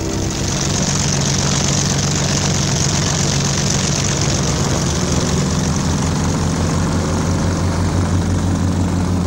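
Propeller aircraft's piston engine running steadily: a rushing propeller hiss over a low engine drone. The hiss eases after about five seconds and the drone grows stronger.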